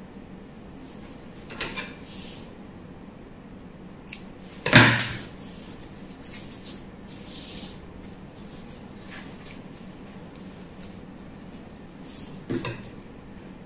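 Fabric and pattern paper rustling as they are handled on a wooden table, with one sharp knock about five seconds in as a pair of metal scissors is set down, and a few lighter taps.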